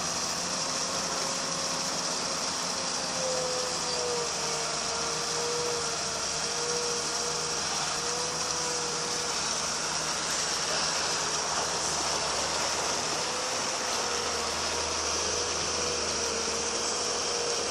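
A 20-ton excavator and the hydraulic mud suction pump it drives, running steadily with a slightly wavering whine over a continuous machine hiss.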